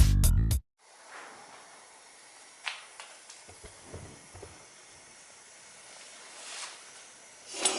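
Electronic intro music stops abruptly half a second in, giving way to a faint steady hiss with a few light clicks and knocks.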